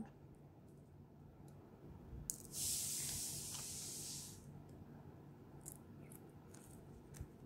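Backing liner peeled off double-sided tape on a small paper square: a rasping hiss lasting about two seconds, starting about two and a half seconds in. A few faint paper clicks and rustles come before and after it.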